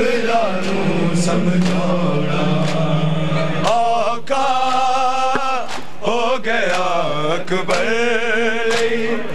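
Male voices chanting a Punjabi noha in a mournful, bending melody, over a steady rhythm of open-handed strikes on bare chests (matam), about one beat every three-quarters of a second.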